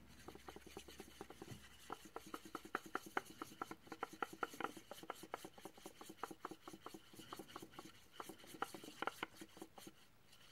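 Paintbrush mixing enamel paint on a clear plastic lid used as a palette: quick rubbing and scraping strokes, several a second.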